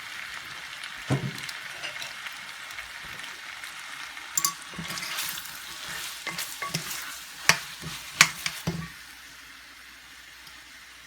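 Spaghetti and shrimp sizzling in a frying pan while a utensil stirs them, knocking against the pan now and then; the sharpest knocks come about seven and eight seconds in. The sizzle quietens near the end.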